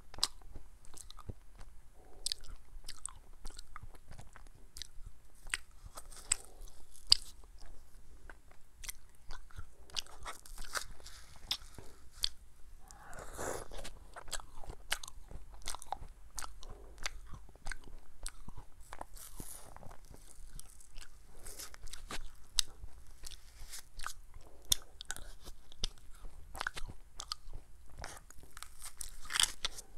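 Close-up eating sounds of a person eating ice cream from a plastic spoon: frequent sharp wet mouth clicks and smacks while chewing, with one louder, fuller mouth sound about halfway through.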